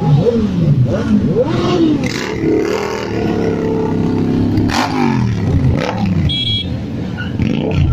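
A group of motorcycles revving and pulling away, several engines overlapping, their pitch rising and falling repeatedly as the riders open the throttle.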